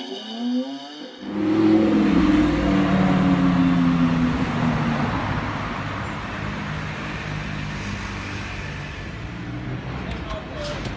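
A brief rising tone under the opening, then about a second in, car engine noise on a city street starts suddenly. Its pitch slowly falls over the next few seconds and it settles into steadier, quieter traffic noise.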